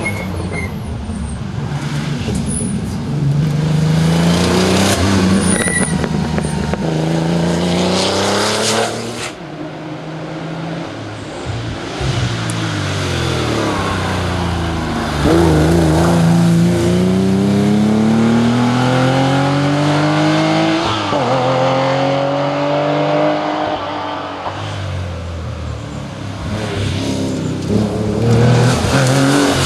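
An air-cooled Porsche 911 flat-six rally car at full throttle, its engine note climbing through the revs again and again with a quick drop at each gear change, loudest as it comes close.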